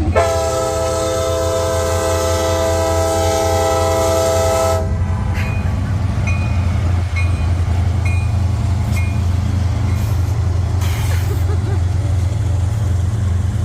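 Locomotive air horn sounding one loud, long blast of about five seconds, a chord of several tones, cutting off sharply, over the steady low rumble of the train.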